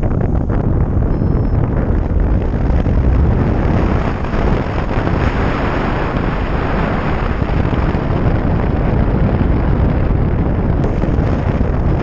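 Wind buffeting a GoPro's microphone on a hang glider in flight: a loud, steady, deep rush of wind noise from the airspeed.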